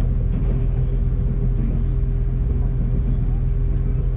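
Steady low rumble and hum heard inside a passenger train carriage.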